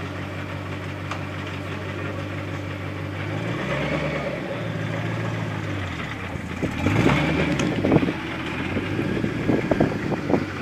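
Ford GT's supercharged V8 idling steadily. Its engine speed rises briefly about three and a half seconds in, then it is blipped louder about seven seconds in.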